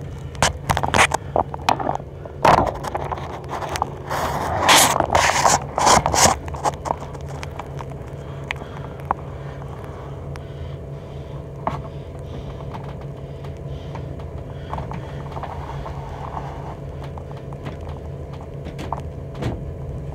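A steady machine hum with a few fixed tones runs throughout. Over it, in roughly the first seven seconds, come irregular scraping and crackling noises, then only the hum remains.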